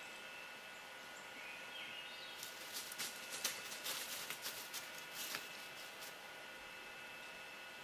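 Border collie's paws rustling and crackling through dry fallen leaves: a faint scatter of light crackles that comes in about two and a half seconds in and dies away after about five and a half seconds.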